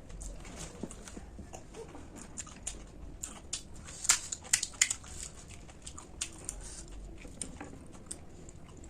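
Close-up chewing and crunching of crisp food, with a run of sharp, loud crunches about four to five seconds in.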